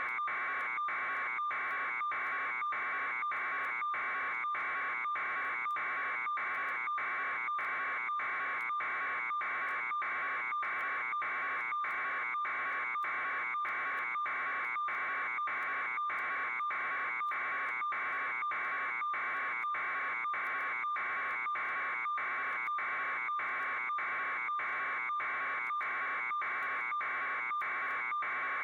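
A steady buzzing tone that pulses evenly about twice a second without change.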